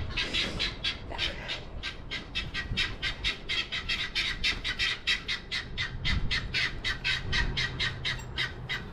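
Guinea fowl calling in a continuous rapid, harsh chatter, about four or five calls a second: agitated flock calling, upset at being split by a fence.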